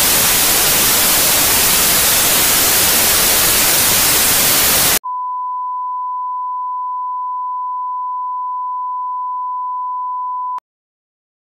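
Analogue TV static hiss for about five seconds, then a sudden switch to the steady single-pitch test tone that goes with colour bars, held for about five and a half seconds before cutting off sharply near the end.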